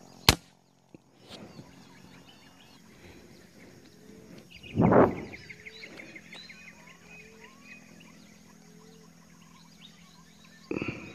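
A single sharp air-rifle shot cracks about a third of a second in. It is followed by forest birds chirping and calling over a steady insect drone, with a louder rush of noise about five seconds in and again near the end.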